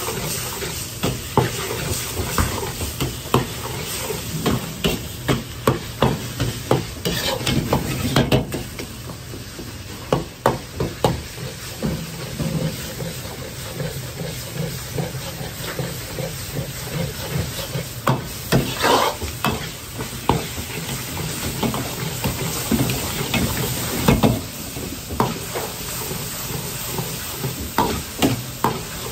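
Ground pork frying in a wok, sizzling, while a metal ladle scrapes and clanks against the wok again and again as the meat is broken up and stirred. A steady low hum runs underneath.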